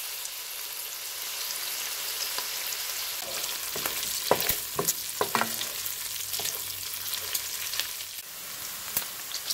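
Diced bacon and onion sizzling steadily in hot oil in a frying pan. About halfway through, a wooden spoon stirs them, with a run of scrapes and clicks against the pan.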